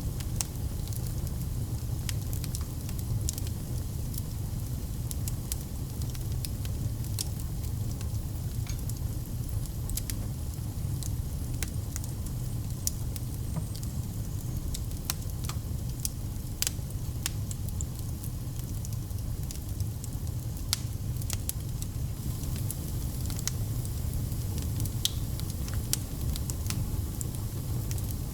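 Fire burning in a fireplace: a steady low rumble of flames with frequent sharp, irregular crackles and pops.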